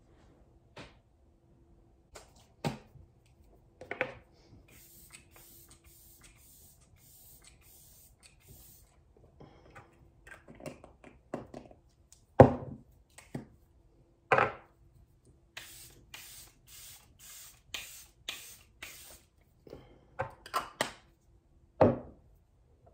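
A pump spray bottle spritzed in two quick runs of about eight sprays each, roughly two a second. Between the runs there are sharp knocks and clatter as small objects are handled and set down.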